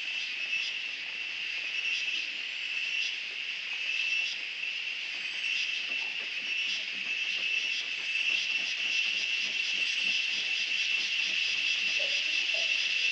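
Steady, high-pitched shrill of a forest insect chorus, with short pulses ticking irregularly above it.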